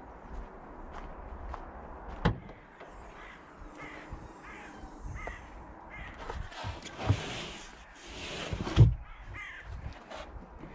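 Footsteps crunching on packed snow, a sharp click about two seconds in, then rustling and knocks as the open tailgate and boot of a Skoda Kodiaq SUV are handled, the loudest thump coming near the end.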